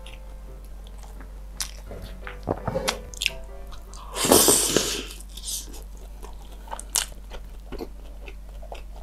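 Close-miked eating sounds from fried chicken in cheese sauce eaten by hand: wet smacking and finger-licking. There is one loud bite into the chicken about four seconds in, followed by chewing.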